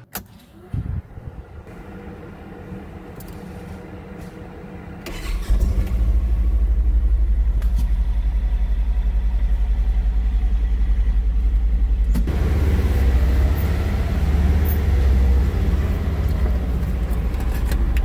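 Polaris Ranger XP 1000 UTV's twin-cylinder engine, heard from inside the cab, started with the key and idling low. About five seconds in it comes up to a louder, steady run as the machine drives off. About twelve seconds in the sound opens up with added tyre and road noise as it rolls out onto the gravel.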